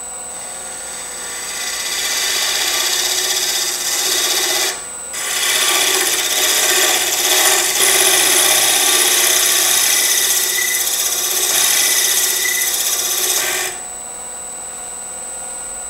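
Negative rake scraper (a double-ended Boxmaster box scraper with a fresh burr) cutting the end grain of a wooden box lid spinning on a lathe: a steady scraping hiss as fine shavings come off. It breaks off briefly about five seconds in and stops a couple of seconds before the end, leaving the running lathe's hum and high whine.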